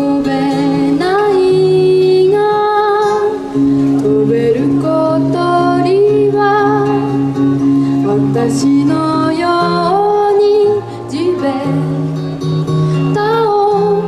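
Song with a girl's singing voice over acoustic guitar accompaniment and steady bass notes, the melody line wavering with vibrato.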